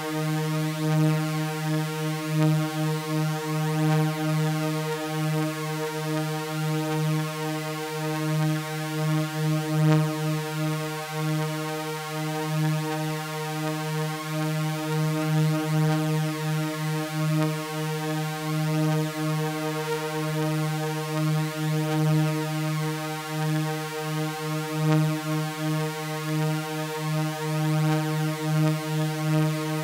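Sustained electronic drone of layered sawtooth waves pitched around 155 Hz: a buzzy, unchanging chord with a faint fluttering beat.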